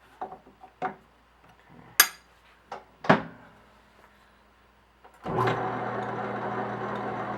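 A few clicks and clunks of metal lathe levers being set, then about five seconds in the lathe starts and runs steadily in back gear with a low gear hum and whine.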